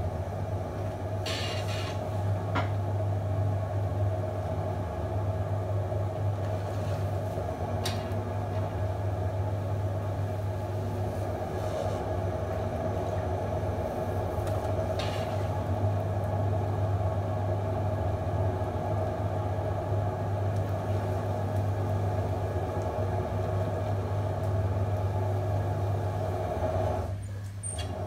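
Electric potter's wheel running with a steady motor hum as terracotta clay is centred on it, pushed down and drawn up into a cone. A few faint clicks come through, and the hum dips briefly near the end.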